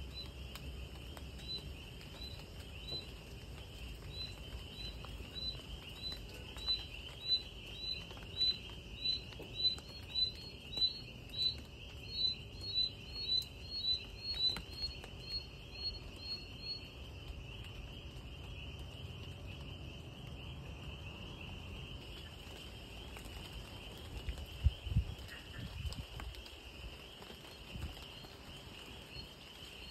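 Night chorus of insects, a steady high cricket-like trill, over a soft patter of light rain. A repeated chirping call about twice a second runs through the first half and stops, and a few dull thumps come near the end.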